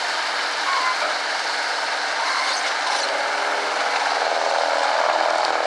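Heavy machinery running steadily: an old Caterpillar 225 hydraulic excavator working with a wood grinder going, a continuous mechanical din.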